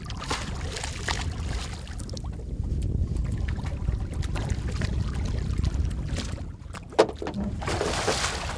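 Golden trevally splashing at the surface beside a boat as it is brought in and grabbed, over a steady low rumble of wind and water against the hull. A sharp knock comes about seven seconds in, then a burst of splashing near the end as the fish is reached for.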